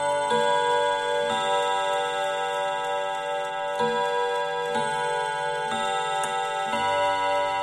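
Junghans W64 mantel clock movement chiming on its five nickel-silver gong rods: hammers strike single notes of changing pitch about once a second, each note ringing on under the next, with a longer pause between phrases. The movement ticks underneath.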